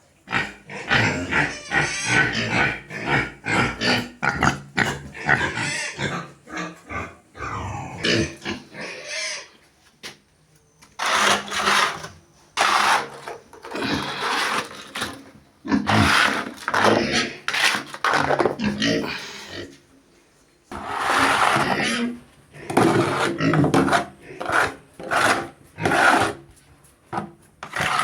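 Pigs grunting in loud, rapid runs of short noisy calls, with brief lulls twice.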